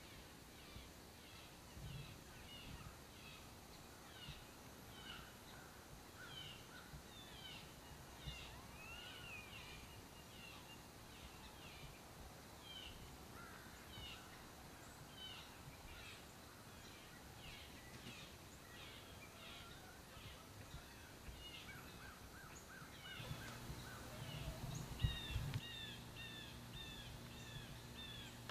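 Faint bird calls: many short, high chirps, some sliding down in pitch, over a background hiss. Near the end a low hum comes in and there is one sharp knock.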